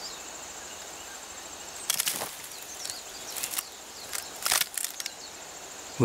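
Outdoor ambience with a steady high insect trill, broken by a few short rustling crackles about two, three and a half and four and a half seconds in.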